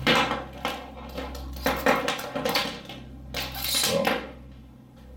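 Handling noise of oscilloscope probe leads: rustling and light clattering of the cables and their probe tips and connectors as they are picked up and moved, in several uneven bursts, the loudest near the start, just under two seconds in and near four seconds in.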